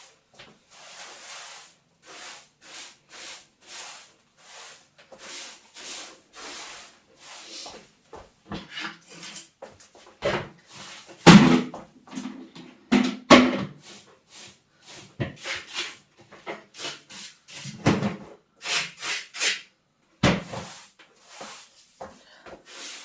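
Broom sweeping a floor in quick brushing strokes about two a second, with several louder knocks and bumps in the second half.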